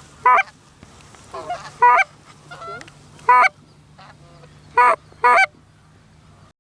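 Canada goose honks: about five loud, sharp honks with softer clucks and murmurs between, ending abruptly near the end.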